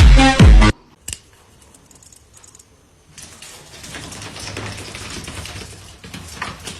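Electronic dance music with a heavy beat cuts off under a second in, followed by faint scattered clicks and light taps over a low hum.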